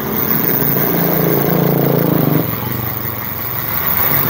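Rear freewheel ratchet of an Element Ecosmo Z8 folding bike clicking in a fast run as the rear wheel spins freely, dropping off about two and a half seconds in. A modest ratchet, not a loud one, as is usual on an economy folding bike.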